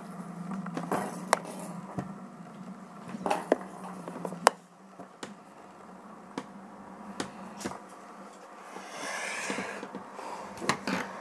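Scattered sharp clicks and taps of hard plastic as the flaps and buttons of a Fisher-Price toy playhouse are handled, over a low steady hum, with a brief rustle about nine seconds in.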